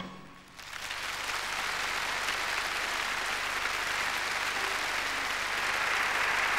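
Large theatre audience applauding. The song's music cuts off right at the start, and the clapping swells up within the first second, then holds steady.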